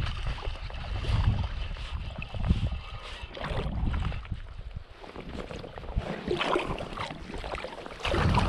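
Wind buffeting the microphone over river water, with a hooked brown trout splashing at the surface in the last few seconds.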